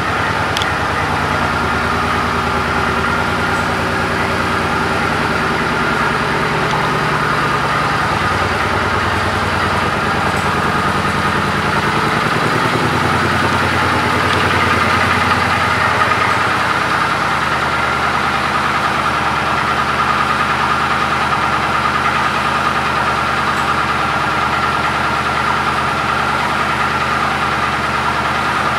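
Suzuki Boulevard M50's 805 cc V-twin engine idling steadily just after start-up, with a small shift in its low note about twelve seconds in.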